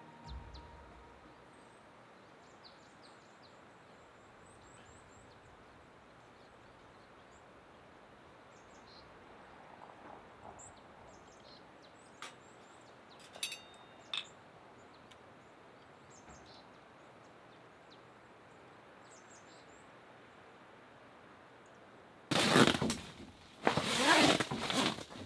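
Quiet outdoor ambience with faint birds chirping on and off, a few sharp clicks about halfway through, then loud rustling bursts near the end.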